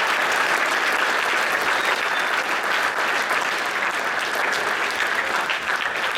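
Audience applauding, a sustained round of dense clapping that eases off slightly near the end.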